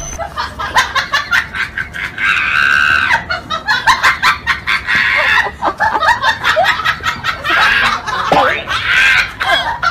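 People laughing in rapid repeated bursts, with shriller laughter about two seconds in and again near the end.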